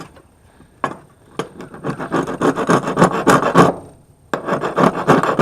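Chrome plating being scraped off a brass faucet part in two bouts of quick, rasping strokes, exposing the yellow brass to check the metal. A single sharp click comes just before the first bout.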